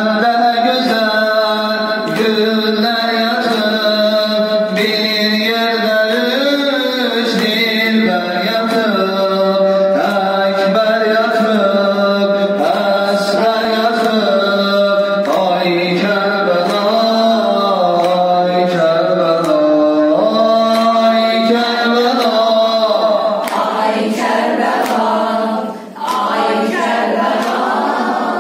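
A voice chanting a Shia mourning lament (noha) for Karbala, in long, sliding melodic lines, with a thin steady high tone behind it that drops out near the end.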